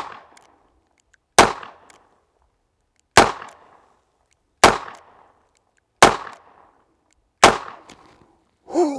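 Taurus M44 .44 Magnum revolver fired double action, five shots about a second and a half apart, each a sharp report with a short echoing tail. Every cartridge fires, with no light strikes, on the lightened Galloway Precision springs.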